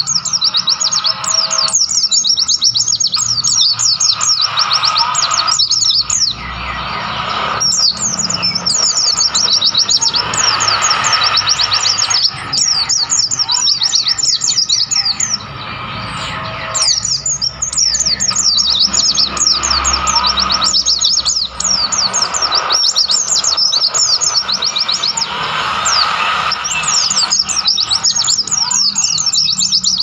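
Pleci (white-eye) singing: rapid, high twittering phrases in bouts of several seconds, with short pauses between them.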